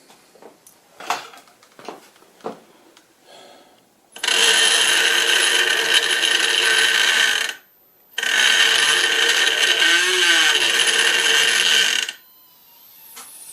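Sky-Watcher EQM-35 equatorial mount's declination motor drive slewing: a loud steady whine with several tones, running for about three seconds, stopping briefly, then running again for about four seconds. A few light clicks come before it.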